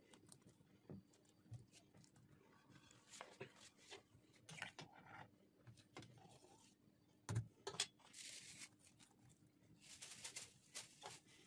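Faint kitchen handling sounds: soft clicks and small plops as cheese dough balls are dropped by hand into a pot of simmering vegetable soup. Two louder knocks come about seven and a half seconds in, and brief rustles follow near the end.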